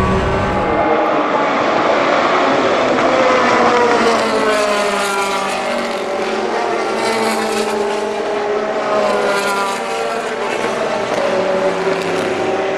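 Porsche 996 GT3 RSR's flat-six racing engine running hard on track, its note climbing and falling several times as it revs and shifts. The deep low end drops away about a second in as the car moves off.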